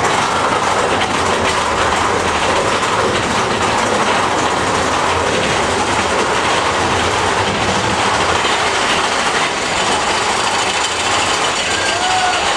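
Big Thunder Mountain Railroad mine-train roller coaster running along its track, heard from inside a moving car: the steady, loud rattle and rumble of the train's wheels and cars.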